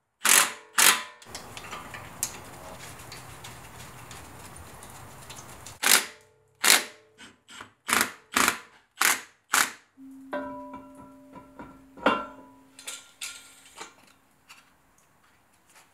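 Cordless ratchet run in short bursts to drive the coilover-to-knuckle bolts, each burst a quick whir, about ten in all: two near the start and a quick uneven run in the middle. Lighter clicks and knocks of tools on the strut follow.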